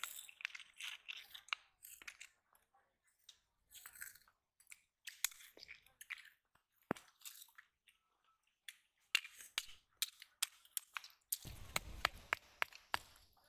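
Hand-held stone striking and grinding against a flat rock, crushing a snail's shell with sharp, irregular cracks and crunches. Near the end it turns into a heavier, continuous grinding as the stone is pressed down and rubbed on the rock.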